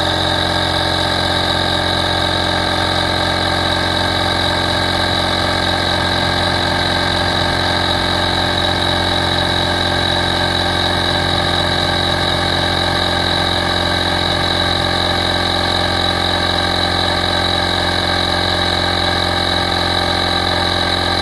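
A 12V portable digital tire inflator's compressor running steadily, pumping air into a tire toward a preset pressure.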